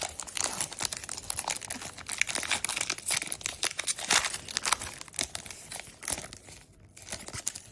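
Foil booster-pack wrapper crinkling and tearing as it is opened and handled, a dense crackle that thins out about six and a half seconds in.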